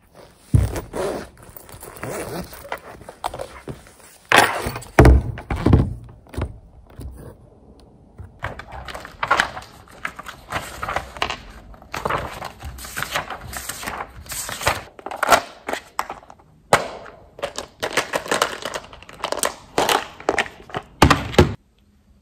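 Desk-top handling of a quilted laptop sleeve and loose printed sheets: repeated rustling and paper shuffling, with heavy thuds as things are set down on the wooden table, one just after the start, two a few seconds in and one near the end.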